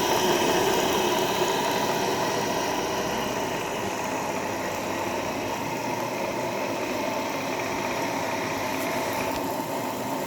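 KACIO LS2-14 two-cylinder reciprocating model steam engine running steadily, with a fast, even mechanical chatter and hiss that gets a little quieter over the first few seconds.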